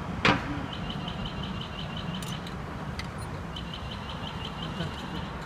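Pedestrian crossing signal chirping in quick runs of evenly spaced high ticks, about eight a second, pausing and starting again, over a low hum of street traffic. A short knock sounds just after the start.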